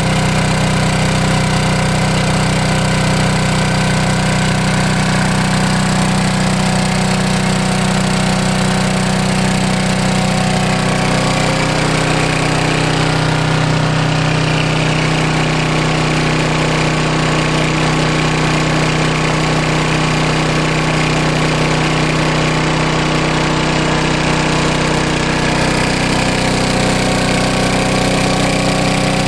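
Honda EU2000i inverter generator's small single-cylinder four-stroke engine running steadily, its engine note shifting slightly about eleven seconds in.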